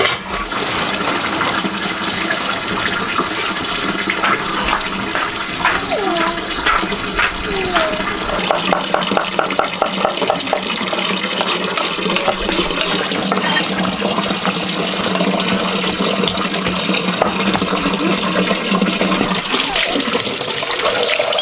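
Water running steadily, a continuous rushing sound, with a few short high chirps over it.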